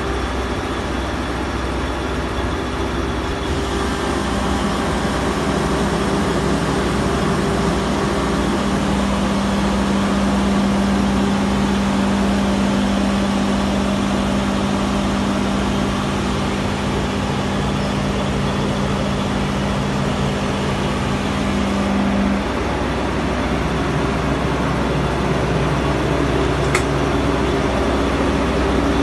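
A 60 hp rotary screw air compressor with its 20 hp booster compressor running steadily: a dense, even machine noise. A low steady hum in it stops about three-quarters of the way through while the rest runs on.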